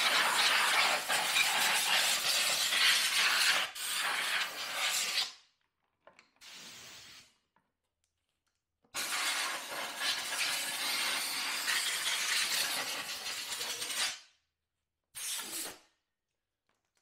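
Compressed-air blow gun hissing in long blasts of about five seconds each, with a short faint puff between them and a brief blast near the end, blowing out the generator's spark arrestor screen and exhaust end.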